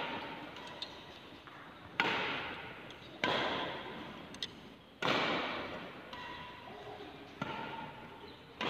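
Badminton racket strikes on shuttlecocks in a multishuttle drill: five sharp cracks at uneven intervals of one to two and a half seconds, each ringing on in a long echo.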